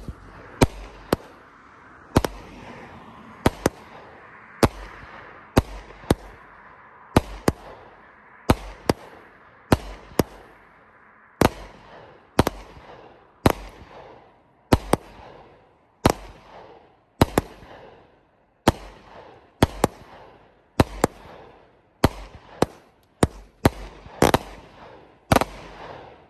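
Consumer fireworks cake, Outlaw Pyro's 25-shot 'Easy Does It', firing a steady string of shots about one a second: each a sharp launch thump and aerial break, trailing off in a fading tail of sparks. The shots come quicker near the end and finish just before it closes.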